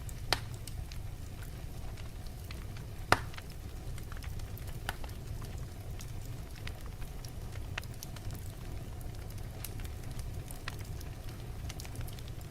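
Wood fire in a fireplace crackling, with scattered small clicks over a low steady rumble of the flames. Two sharper pops stand out, one just after the start and a louder one about three seconds in.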